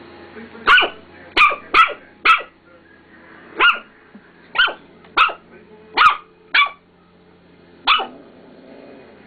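Small fluffy white puppy barking at her own reflection in a mirror: about ten short, sharp, high-pitched barks, some in quick pairs and triples, the last coming near the end.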